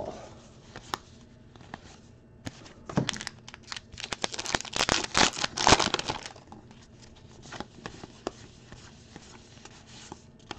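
Foil wrapper of a Topps Allen & Ginter baseball card pack being torn open and crinkled, a dense run of crackling and tearing from about three seconds in until past six seconds. Softer, scattered clicks of the trading cards being handled follow.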